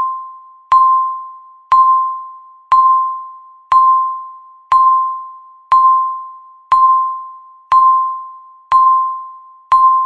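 Countdown timer's per-second tick sound: a sharp ding on one pitch once every second, each fading away before the next. These are the final seconds of the countdown, just before the alarm.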